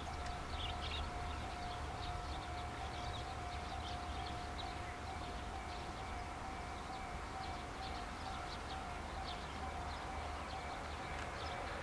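Japanese level-crossing warning alarm sounding steadily, a single held electronic tone, over a low diesel rumble from the distant KiHa 40 railcar.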